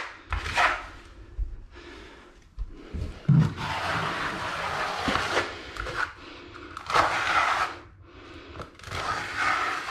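Notched steel trowel scraping and combing epoxy tile adhesive across a shower pan in several strokes, with short pauses between.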